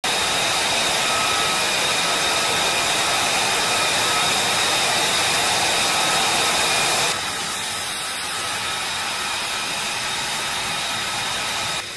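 Single Pratt & Whitney F135 turbofan of an F-35B Lightning II running on the ground: a steady rushing noise with several high, steady whining tones. It becomes quieter about seven seconds in.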